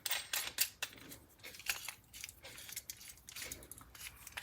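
Light, irregular metallic clicks and rattles of a Powr-Kraft push drill and its bits being handled.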